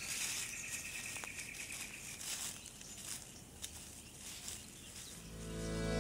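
Quiet forest ambience: a high, even trill in the first two seconds, with faint rustles and a few sharp ticks from dry leaf litter under a walking lace monitor. Guitar music fades in near the end.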